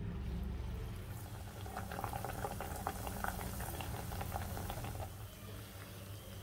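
Banana bun dough deep-frying in hot oil: the oil sizzles and crackles, busiest from about one and a half to three and a half seconds in and settling after, over a steady low hum.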